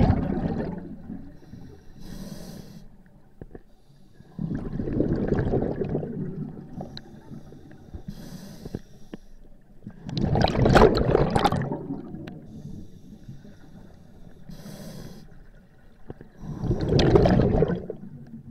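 Scuba diver breathing through a regulator underwater: four bubbling exhalations, one about every six seconds and each lasting a second or two, with a faint hiss of inhalation between them.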